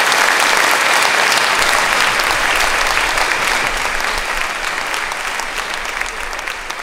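Audience applauding, loud at first and slowly dying down toward the end.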